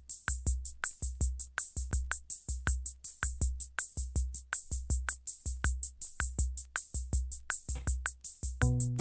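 Background music: an electronic beat with a steady kick drum and fast hi-hat ticks, with chords and bass coming in near the end.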